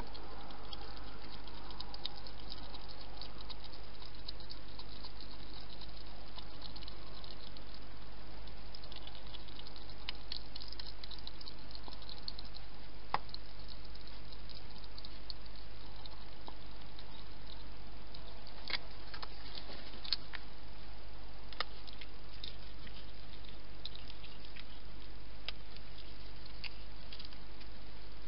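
Hedgehog feeding at bowls inside a feeding box: many small irregular clicks of its eating, with a couple of sharper clicks about halfway through and again past two-thirds, over a steady low hum.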